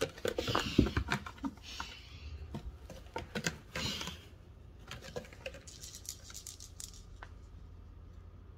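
Cat clawing and scrambling on a sisal-rope scratching post: scratchy rasps mixed with quick taps and knocks, busiest in the first four seconds, then thinning out to a few scattered clicks.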